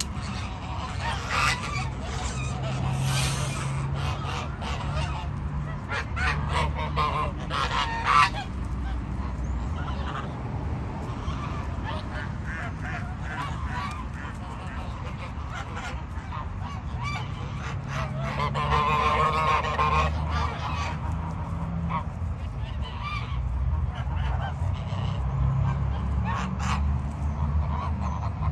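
A flock of domestic geese, white and grey birds, honking repeatedly, with a longer stretch of dense honking about two-thirds of the way through, over a low steady rumble.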